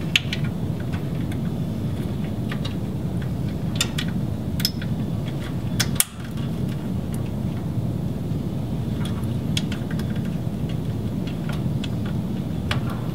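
Steady low rushing room noise, with scattered light clicks and ticks as yellow fiber-optic tails and their plastic MPO connectors are handled and routed on a rack-mounted fiber chassis; the rush dips briefly about six seconds in.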